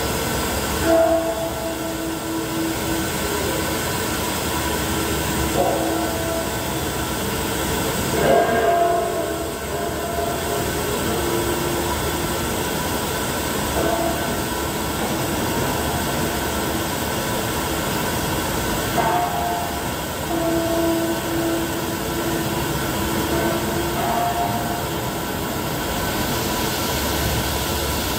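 High-pressure nitrogen flowing through a cylinder-filling manifold into a bank of gas cylinders: a steady rushing hiss with short whistling tones that come and go every few seconds.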